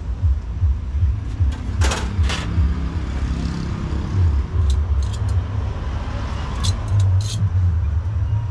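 Metal utensils clicking and scraping on a metal griddle plate as shaved chicken is chopped, a handful of sharp clinks spread through, over a steady low rumble of background noise.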